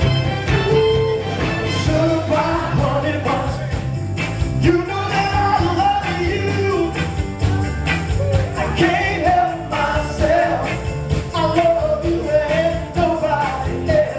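Live band music: a lead vocalist singing a melody over bass and drums.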